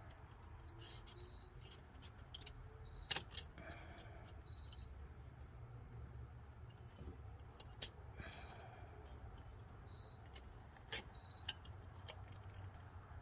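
Occasional light metallic clicks as a piston ring is set into a freshly honed cylinder bore of a Volkswagen 1.5 engine for a ring end-gap check, over a low steady hum.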